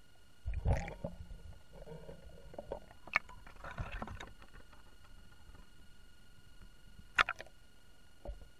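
Irregular muffled thumps and knocks with some watery sloshing, heard through an underwater camera, over a faint steady electronic whine. A cluster comes about half a second in, more around three to four seconds, a sharp double click a little after seven seconds, and one last thump near the end.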